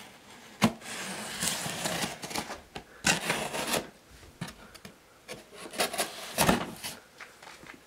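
Utility knife slicing through packing tape on a cardboard box, in about three scraping strokes, with a sharp tap just before the first.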